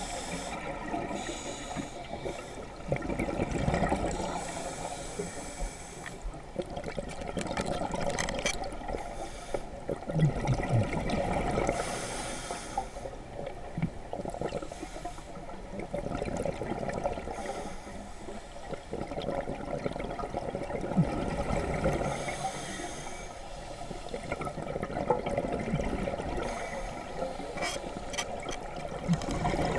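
Scuba regulator breathing underwater: exhaled bubbles gurgling and rushing past the housing in swells every four to five seconds, with quieter stretches between breaths.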